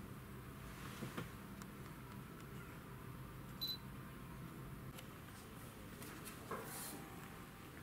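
Quiet ambience under a low steady hum, with a few faint clicks and one brief high-pitched chirp about three and a half seconds in.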